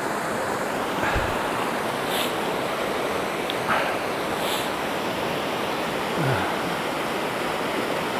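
Small river rushing steadily over stones where it spills into the loch, with a few faint brief sounds over it.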